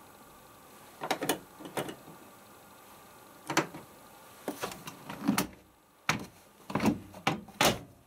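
A series of short, sharp clicks and knocks, about a dozen at irregular spacing, from hands working the controls and door of a Pro Action A105QW washing machine: push buttons, the programme selector dial and the door being handled. A faint steady hum underneath drops away about six seconds in.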